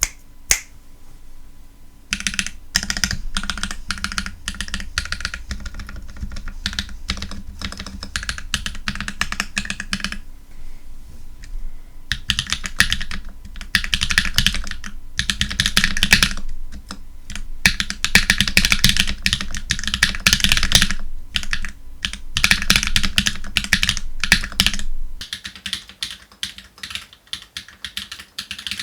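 Typing on a caseless 0xCB Static mechanical keyboard with Akko CS switches and GMK keycaps: fast runs of keystrokes with a short pause about ten seconds in, thinning to scattered single keystrokes near the end.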